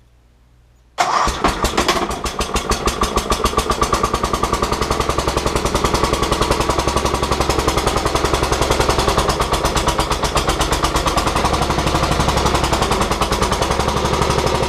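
Terramite compact backhoe's engine starting about a second in, catching at once and then running steadily with an even, rapid exhaust beat.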